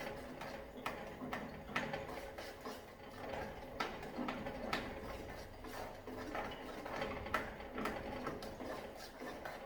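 A spoon stirring thick plantain porridge in a pot, scraping and knocking against the pot in irregular clicks about once a second.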